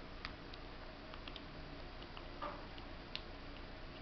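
Eurasian red squirrel chewing corn kernels: small sharp clicks at irregular intervals, with one slightly louder crunch about halfway through.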